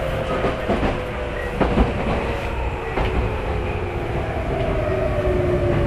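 Tokyu 9000-series electric train heard from inside a passenger car: motor whine falling steadily in pitch as the train slows, over steady running rumble, with a few wheel knocks over rail joints.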